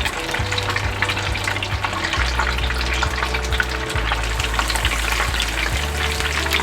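Beer-battered cod fillets frying in hot oil on medium heat, a steady, dense crackling sizzle.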